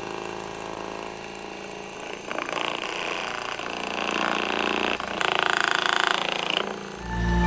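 A small motor running with a steady buzz that steps up in loudness about two seconds in and again about five seconds in, then drops away. Music starts just before the end.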